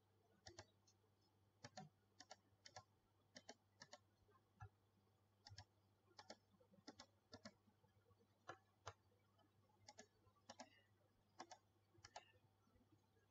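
Faint, scattered clicks of a computer mouse, some in quick pairs, as objects are picked and selection windows dragged in AutoCAD.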